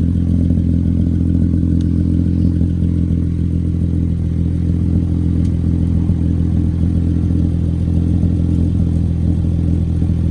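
An engine idling steadily: a low, even drone with no change in speed.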